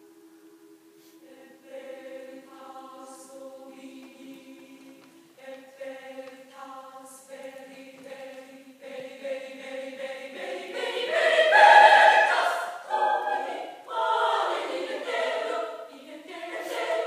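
Women's choir singing held chords, soft at first, swelling about ten seconds in to a loud climax and continuing in strong phrases.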